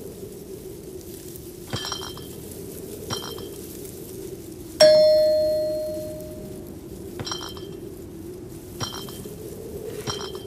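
A single bell-like ding about halfway through, a clear ringing tone that fades away over about two seconds. A few short metallic clinks come before and after it, over a steady low background hum.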